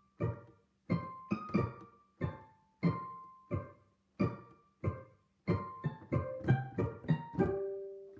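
Background music: a slow solo piano melody of single struck notes, each fading away, ending on a longer held note that cuts off suddenly near the end.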